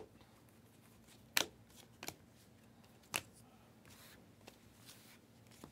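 Panini Prizm basketball trading cards being flicked through one by one from a stack, with faint card rustle and three sharp card snaps in the first half.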